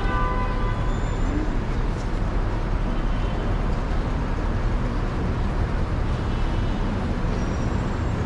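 City street ambience: a steady low rumble of road traffic with general street noise. A snatch of music fades out about a second in.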